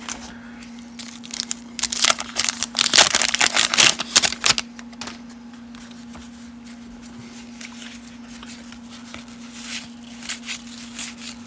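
A 1989 Fleer wax pack torn open, its waxed-paper wrapper crinkling and tearing for a few seconds. This is followed by quieter rustling of the cards being slid and fanned out.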